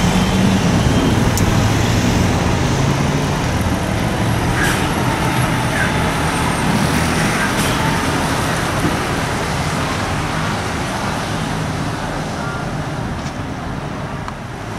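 Renault T-range articulated lorry with a refrigerated trailer driving past, its diesel engine running steadily with road noise, growing fainter as it pulls away.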